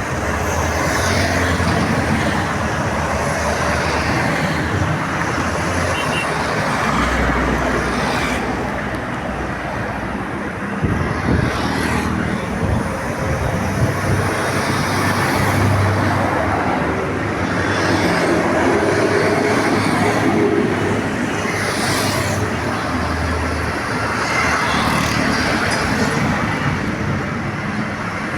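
Busy road traffic, with buses and other motor vehicles passing one after another over a steady rumble of engines and tyres.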